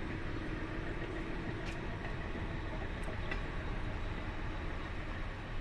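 Steady low background rumble with a faint hum and a few faint clicks.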